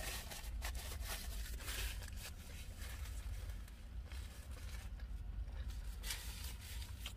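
Paper fast-food packaging rustling and crinkling as it is handled, in a string of short rustles, two of them louder.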